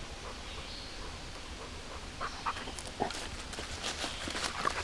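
A small dog panting faintly, with a few light scuffs and taps from about two seconds in, over a low steady rumble.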